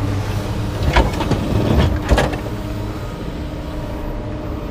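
Vehicle engine running steadily at idle, with two sharp knocks about one and two seconds in.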